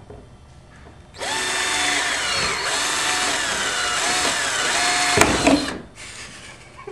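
Cordless drill with a 13/64 inch bit boring through the plastic kayak deck, its motor whine rising and falling in pitch under load for about four and a half seconds. A sharp click sounds near the end and the drilling stops: the bit has come out of the drill's chuck and stays in the hole.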